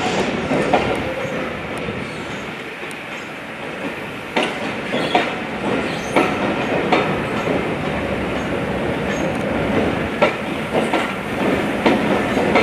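Passenger coaches of a steam-hauled train rolling past below, their wheels clicking over points and rail joints at irregular intervals over a steady rumble.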